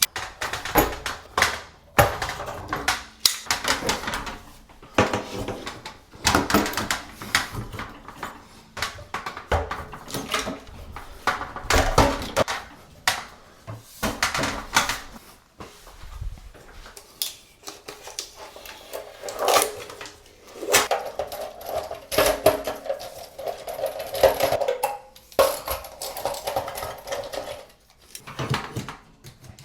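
Irregular clanks, knocks and clatters of hand tools and metal fittings being handled during plumbing work on a water heater, with a short ringing metallic note about two-thirds of the way through.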